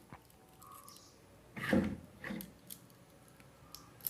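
Thin enamelled copper wire being wound by hand onto a ceiling fan stator: faint rustling and light clicks of handling, with a brief louder rustle about two seconds in.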